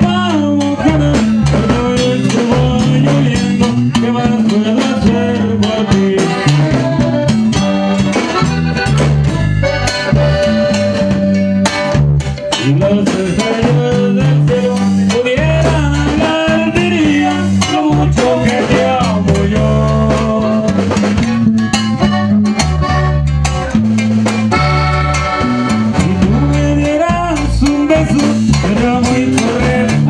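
Live norteño band playing: a Hohner button accordion carries the melody over guitar, electric bass and drum kit, with a steady beat.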